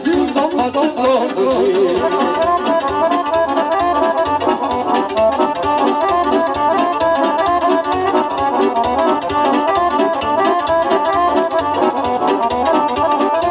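Amplified live band playing an instrumental break: an accordion and keyboard play a fast, ornamented melody over a steady keyboard beat. A sung line dies away about two seconds in.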